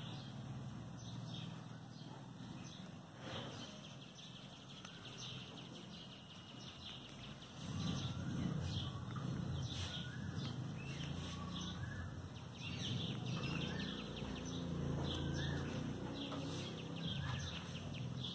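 Small birds chirping faintly in the background, over light clicks and rustles of a metal trouser zipper pull being batted and mouthed by a kitten. A low hum grows louder about seven seconds in.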